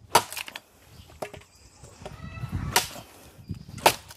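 Four sharp chops of a blade biting into wood, each a second or so apart, as tough firewood is hacked up.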